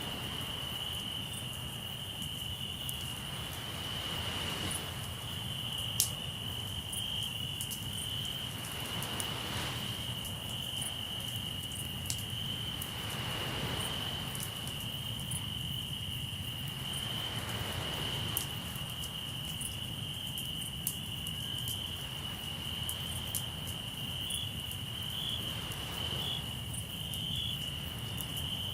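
Crickets trilling steadily. Waves wash in every four or five seconds, and a campfire gives a few sharp pops, the loudest about six seconds in.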